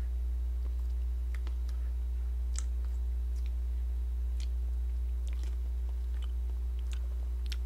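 Faint scattered clicks of a spoon scooping from a plastic cup, and chewing, over a steady low hum.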